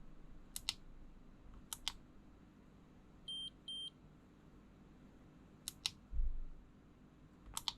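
An electronic device gives two short high beeps about half a second apart, amid small double clicks every second or two and a dull low thump about six seconds in.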